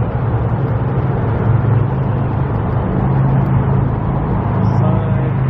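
Car engine and road noise while driving slowly: a steady low hum.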